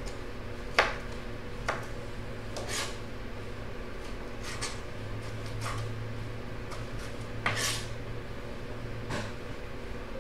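Kitchen knife dicing tomatoes on a cutting board: irregular cutting strokes and taps of the blade on the board, every second or two. A steady low hum runs underneath.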